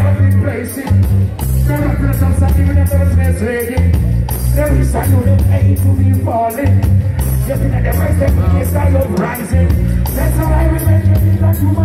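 Live reggae band music with a heavy bass line and a male vocalist singing over it through a loud PA.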